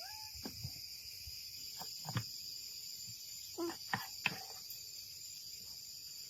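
Steady high-pitched chirring of insects, likely crickets, with a few short knocks and brief voice-like sounds about two seconds in and again around four seconds.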